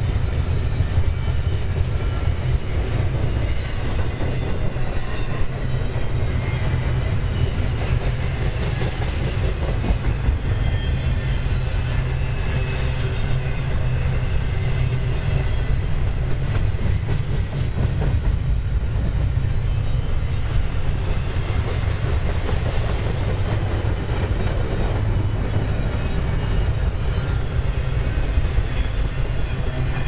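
Double-stack container train's loaded well cars rolling past: a steady heavy rumble of steel wheels on rail with clickety-clack over the rail joints, and a few faint high squeals from the wheels near the start and again near the end.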